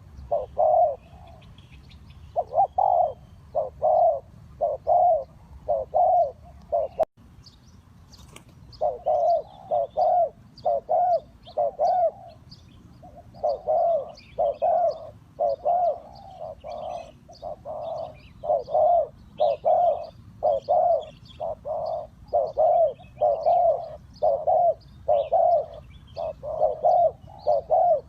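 Spotted dove cooing in runs of short, repeated low coo notes, with a pause and a single sharp click about seven seconds in. Small birds chirp faintly behind it.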